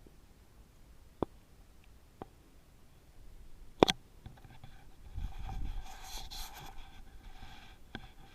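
.25 calibre air rifle firing once, a sharp, quick crack about four seconds in, with two faint clicks before it. A rustling, scuffling noise follows for a couple of seconds.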